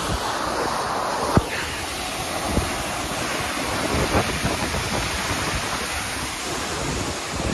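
Steady rushing roar of a large waterfall, with wind buffeting the microphone. Two short sharp clicks come about a second and a half and two and a half seconds in.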